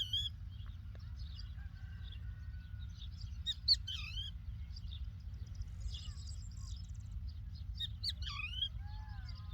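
Lark singing in a run of short chirping and sliding phrases, louder around four and eight seconds in, over a steady low rumble.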